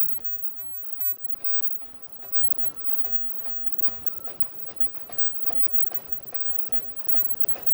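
Face-mask making machine running, its pleat-folding mechanism clacking in a steady rhythm of about three clacks a second over a constant mechanical hum.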